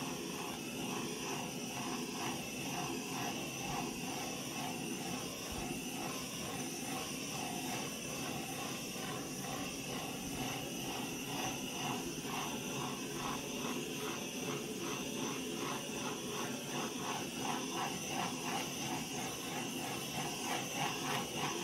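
Handheld butane torch hissing steadily as its flame is passed over wet acrylic paint to pop surface bubbles. A soft rhythmic pulsing, a few beats a second, runs through it and grows stronger near the end.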